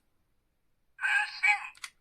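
A Bandai DX Kamen Rider Revice toy belt's small speaker plays a short, tinny voice sound after a second of silence, followed by a sharp click near the end.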